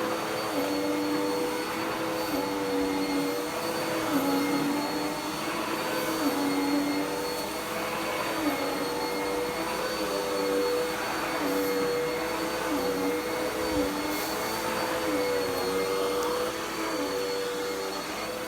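Dirt Devil PowerMax Pet vacuum cleaner running steadily, its motor tone dipping briefly and recovering every couple of seconds, with a few faint clicks.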